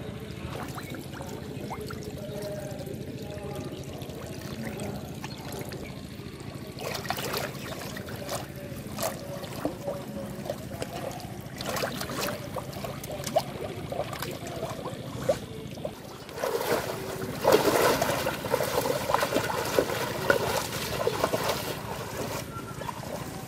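Water splashing and sloshing as a large clay pot fish trap is worked loose and dragged through shallow, weed-choked water. The splashes are irregular, starting about a third of the way in and heaviest about two-thirds through.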